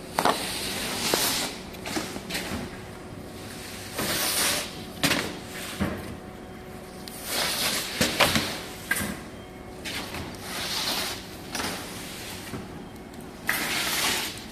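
Thin plywood sheets being slid and flipped over a stack: repeated swishing scrapes of wood sliding over wood, with sharp slaps and knocks as sheets drop onto one another.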